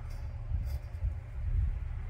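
Wood-Mizer bandsaw blade sharpener running: a steady low motor rumble with a faint click now and then.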